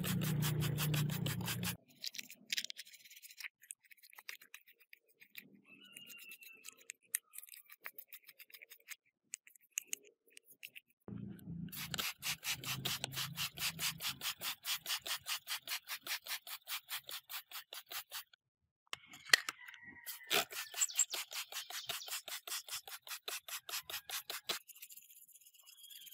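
Hand rubbing of an abrasive on a hard surface, in runs of quick back-and-forth strokes with pauses between them. A low hum sounds at the start and again just before the middle.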